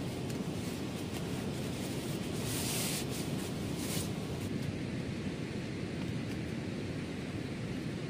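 Strong wind and sea surf: a steady low noise, with a brief hissing rush between about two and a half and four seconds in.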